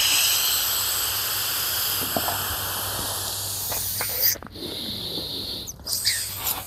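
Air blown hard by mouth into the valve of an inflatable tube lantern, a steady hissing rush of breath. It breaks off about four seconds in and starts again with a second, shorter breath to fill the tube.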